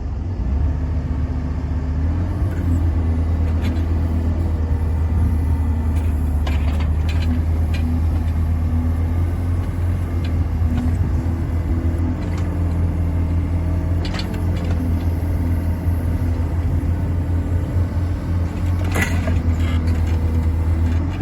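Yanmar VIO55 mini excavator's diesel engine running steadily, with a few brief knocks.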